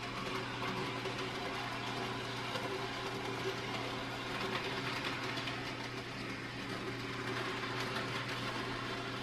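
N gauge model locomotive running steadily around the track: the small electric motor and the wheels on the rails give an even mechanical hum that does not change.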